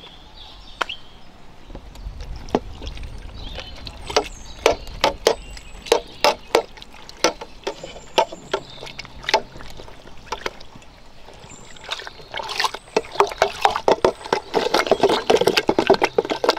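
Thick curd being churned with a steel rod in a steel container: wet squelching and slapping with many sharp clicks of metal on metal. The churning grows busier and louder in the last few seconds.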